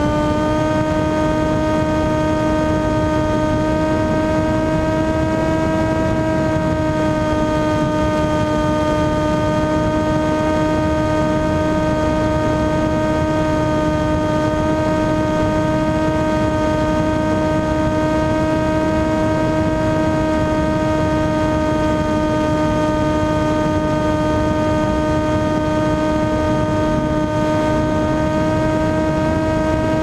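RC model aircraft's motor and propeller, heard through the onboard camera: a steady humming tone with a row of overtones, holding nearly one pitch, over a rush of wind noise.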